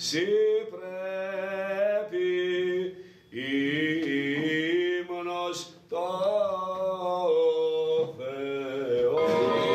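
Male voices in Greek Orthodox Byzantine chant: a solo melismatic line that bends and ornaments over a steady low held drone note (the ison). The line breaks briefly for breath about three and six seconds in.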